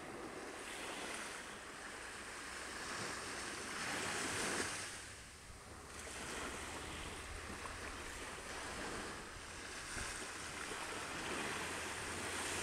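Small waves breaking gently and washing up onto a sandy beach, the sound swelling and fading with each wave, loudest about four seconds in.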